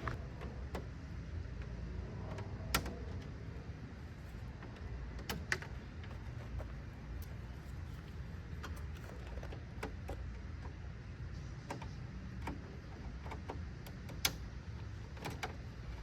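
Scattered sharp plastic clicks and snaps, three of them louder than the rest, as push-in retaining clips are pried out and the front grille of a 2013 Honda CR-V is worked loose. A steady low rumble runs underneath.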